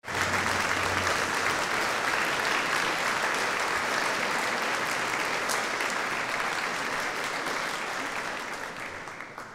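Concert audience applauding, a dense steady clapping that dies away near the end.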